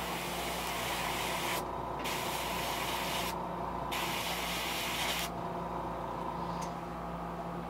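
Airbrush spraying paint in three hissing bursts of a second or two each, with short pauses between them. A steady hum runs underneath.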